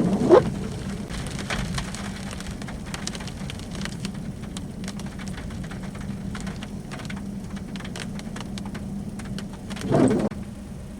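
Rain falling, with many separate drops ticking on a hard surface over a steady low hum. There is a brief louder sound at the very start and another near the end.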